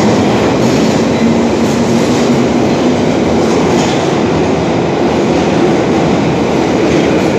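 London Underground Bakerloo line 1972 Stock tube train running past along the station platform at speed, a loud, steady rumble of wheels and motors in the tunnel.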